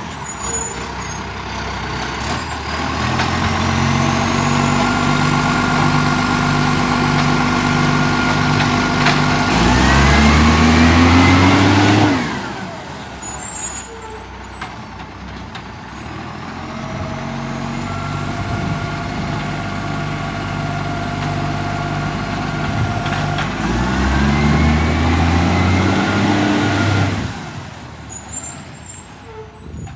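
Acco Bucher garbage truck's diesel engine, with a leaking exhaust, running and twice revving up in a rising pitch before dropping back. Short bursts of air hiss follow each rev.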